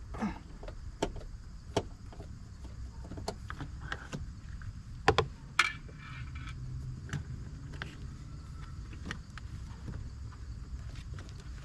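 Scattered sharp clicks and knocks of hard plastic as a car door's interior trim panel is handled and pressed into place, the loudest two about five seconds in.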